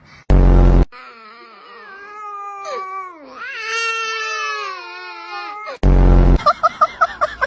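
A short, loud buzzy blast. Then a high, wavering cry whose pitch glides up and down for about five seconds. Then a second buzzy blast, followed by quick rhythmic honk-like pulses near the end.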